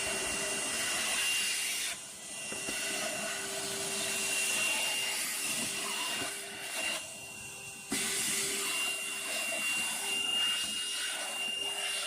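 Holife cordless handheld vacuum cleaner running while it sucks up sawdust: a steady motor whine over rushing air. The sound drops briefly about two seconds in, and again for over a second around seven seconds in, before coming back at full level.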